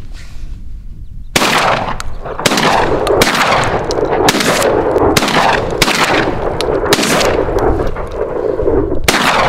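Beretta 1301 Tactical 12-gauge semi-automatic shotgun firing a rapid string of shots, roughly one a second, starting about a second and a half in. The magazine holds mixed birdshot, buckshot, slugs and 3-inch magnum shells, and it cycles them without a stoppage.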